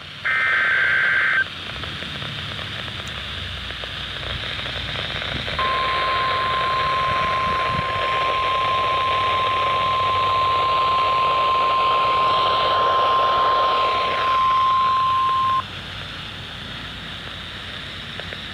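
NOAA Weather Radio alert heard through a steady radio hiss. About a second in comes a short, loud screech of SAME digital header data. A few seconds later the steady single-pitch warning alarm tone sounds for about ten seconds and cuts off, leaving only the hiss.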